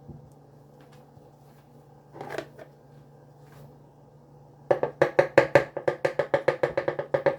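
A rapid series of about twenty sharp, ringing taps, about seven a second, starting about two-thirds of the way in: a kitchen utensil being knocked against the rim of a mixing bowl to shake off batter or ingredients.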